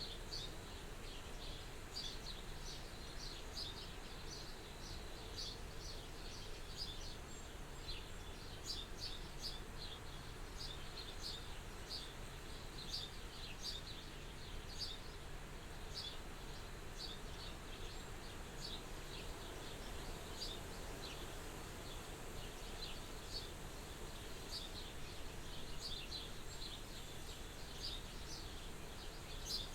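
Soft wind at a farmhouse window: a steady low rush. Frequent short, high chirps sound irregularly over it throughout.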